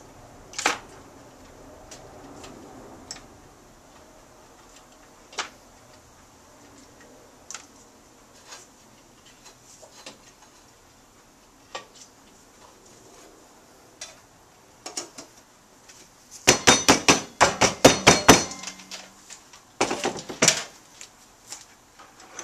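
Small metal carburetor parts and their dip basket clinking against the can as they are lifted out of a can of carburetor parts cleaner: scattered single clinks, then a dense rapid rattle lasting about two seconds around two-thirds of the way in, and a few more clatters near the end.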